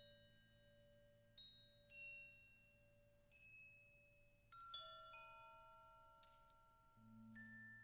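Crotales struck one at a time with mallets, quiet and unhurried, each note ringing on in a long high tone that overlaps the next. A steady low hum lies beneath and swells near the end.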